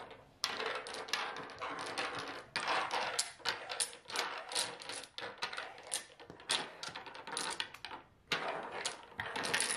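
Dominoes clacking against each other and sliding on a wooden table as hands draw tiles from the pile and set them in a row. Many sharp clicks come in quick, uneven succession, with scraping between them.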